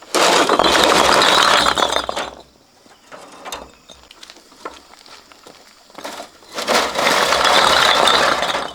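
Sand and gravel rattling as it is moved, in two long gritty bursts of about two seconds each, the first at the start and the second near the end.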